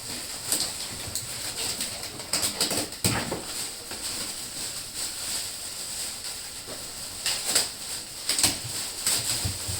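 Packaging rustling and crinkling, with scattered knocks, loudest about three seconds in and again near the end, as a large model-plane fuselage is taken out of its box.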